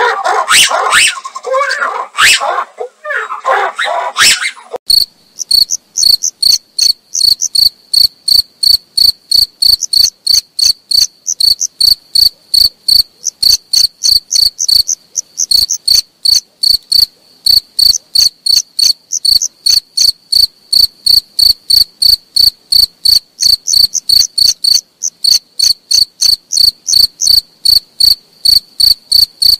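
Black-and-white ruffed lemurs calling loudly for the first few seconds, their calls rising and falling in pitch. They stop suddenly and a cricket takes over, chirping steadily at about two to three chirps a second.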